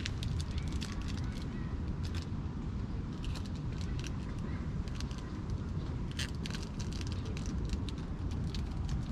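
Steady low outdoor rumble with scattered faint crackling clicks throughout.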